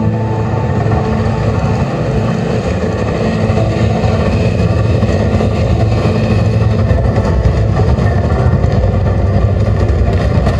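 A loud, steady low rumble with no breaks, a sound effect in the soundtrack of a projection-mapping show.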